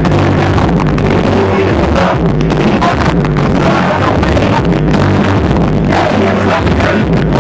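Loud music with a heavy, steady bass line.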